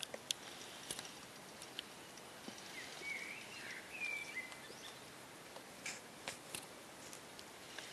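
Faint woodland ambience: a steady hiss with scattered small clicks and ticks, and a few short chirping bird calls about three to four seconds in.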